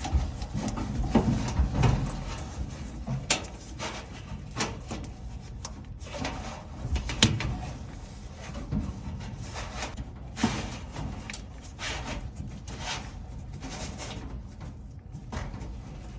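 Scattered clicks, knocks and rubbing from hands working inside an open dryer cabinet, fitting a new drum belt around the drum and pulleys. The sharpest knocks come about three, seven and ten seconds in.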